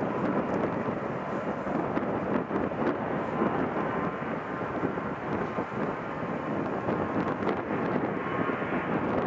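Boeing 777-300ER's GE90 jet engines running at taxi power: a steady rumble with a faint, steady high whine.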